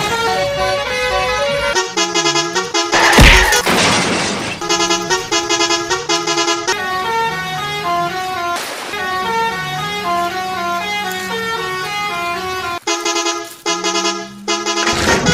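Upbeat background music: a melody of short, stepped notes over a bass line. A loud burst of noise cuts in a little over three seconds in, and a shorter one near nine seconds.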